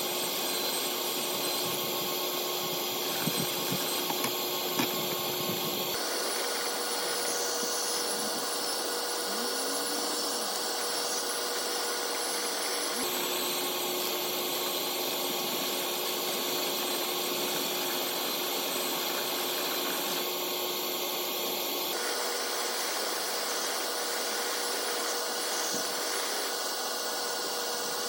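A motor-driven machine, such as a vacuum or power tool, running steadily, with its tone shifting abruptly three times. There are a few light knocks about four seconds in.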